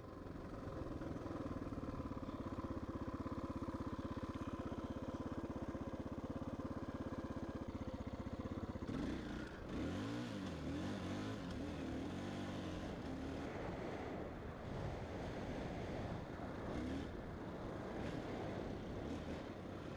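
KTM 640 LC4 single-cylinder four-stroke dirt bike engine running on a steady throttle, then revving up and down from about nine seconds in as the rear wheel slips for grip on wet grass and mud.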